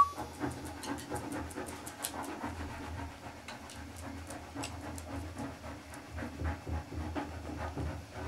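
A dog panting softly, with a few faint scattered clicks.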